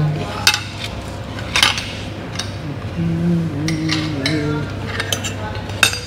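Cutlery clinking against dinner plates while people eat, with a handful of sharp clinks scattered through.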